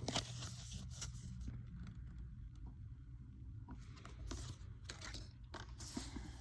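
Faint rustling and light clicks of cards and packaging being handled, with a sharp click right at the start, over a low steady hum.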